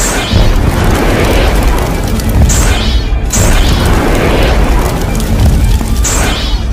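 Sound-effect rumble and booming of a giant fireball, continuous and heavy, with whooshing swells about every three seconds, over background music.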